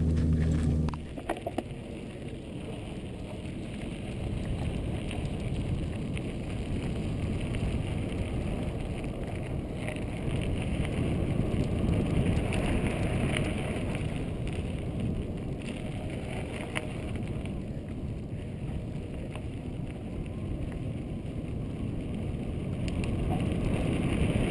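Mountain bike riding a sandy dirt singletrack: continuous rumble and rattle of tyres and frame on the trail, with wind on a bike-mounted camera's microphone, swelling and easing with speed. About a second in, a short steady low hum cuts off.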